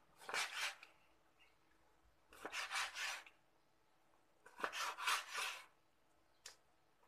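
Large kitchen knife drawn through raw chicken breast and scraping on a plastic cutting board: three slicing strokes of about a second each, then a short tap of the blade near the end.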